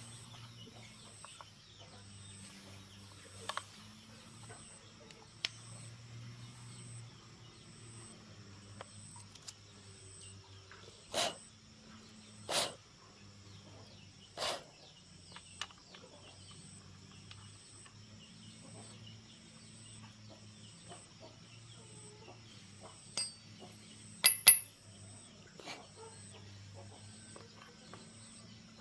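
A handful of sharp knocks over a steady low hum and a high chirp that pulses about once a second; the loudest knocks come as a quick pair near the end.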